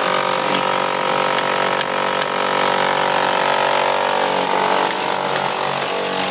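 Handheld demolition hammer running continuously as it chisels into a brick wall, a steady loud hammering with a high motor whine.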